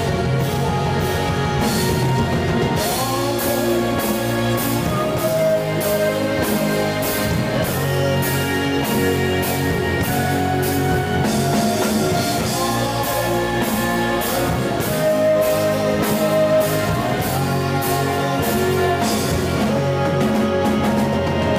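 A doom metal band playing at rehearsal: slow, heavy guitar and a drum kit with a steady beat of cymbal strokes about twice a second, under sustained melodic lines. Recorded through a phone's microphone, so the sound is rough.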